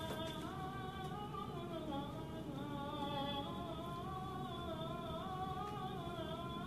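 Music with a voice singing long, slowly gliding notes.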